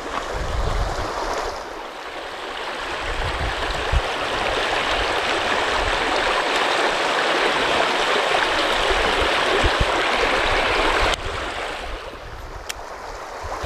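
Shallow river riffle rushing over stones: a steady wash of water that swells over the first couple of seconds and drops away suddenly about eleven seconds in.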